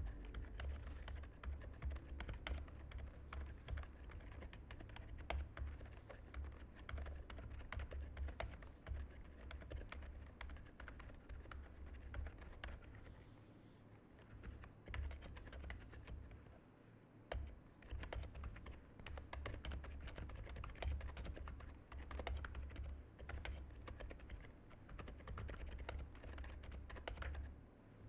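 Typing on a custom Alice-layout mechanical keyboard: a fast, irregular run of keystrokes, easing off for a few seconds about halfway before picking up again.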